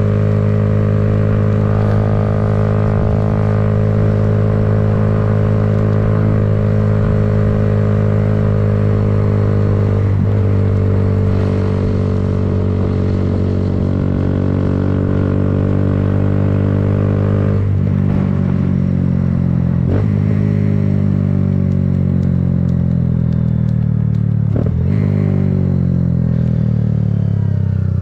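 Kawasaki Z125's small single-cylinder four-stroke engine running under the rider: a steady note for the first half, then the pitch falls repeatedly through the second half as the bike slows, broken by short breaks about 10, 18, 20 and 25 seconds in.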